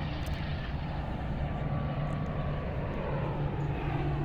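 Airbus A380 airliner's turbofan engines running on the ground after landing: a steady low rumble with a faint thin whine above it.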